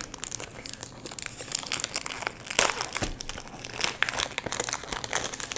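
Product packaging being unwrapped by hand: irregular crinkling of the wrapping with a few sharper crackles about halfway through.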